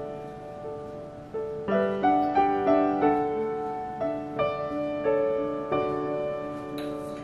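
Background piano music: a gentle instrumental tune with notes struck one after another and fading away.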